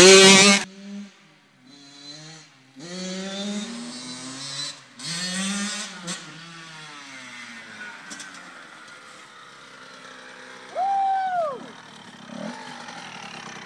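A motor vehicle's engine accelerating, its pitch climbing and dropping back three times in the first six seconds as it runs up through the gears, then running more quietly. A loud burst of noise opens it, and a short tone falls in pitch about eleven seconds in.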